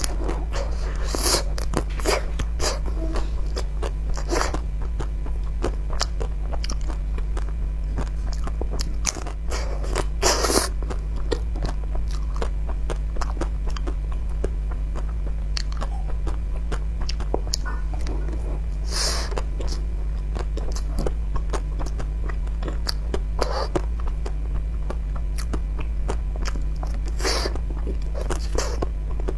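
Biting and chewing a hard-shell-coated ice cream bar: the shell cracks and crunches in many small clicks, with a few louder bites spread through. A steady low hum runs underneath.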